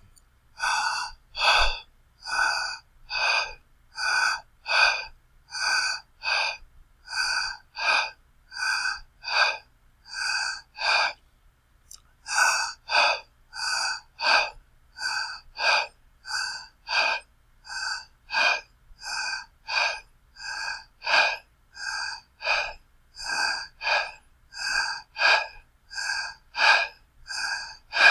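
A person breathing fast and heavily, in quick, evenly spaced breaths of about one and a half a second, breaking off briefly about twelve seconds in.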